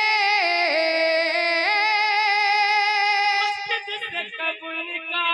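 A naat reciter's voice sings a long, wavering held note without words, bending in pitch. The note ends about three and a half seconds in, and the singing picks up again at the very end.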